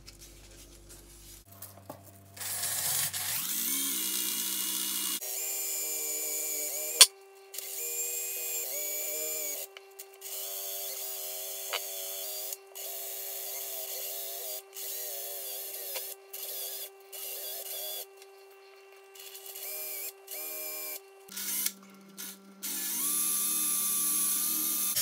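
Makita cordless drill spinning a wooden screwdriver handle against 150-grit sandpaper. The motor whine spins up about two seconds in, then runs in a string of trigger starts and stops, with a sharp click about seven seconds in.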